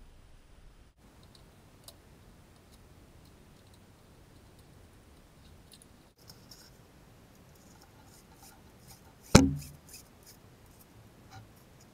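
Faint clicks and handling noises from a roller shutter strap and its flush-mounted strap winder, then one sharp, loud clunk about nine seconds in as the winder comes out of its wall recess.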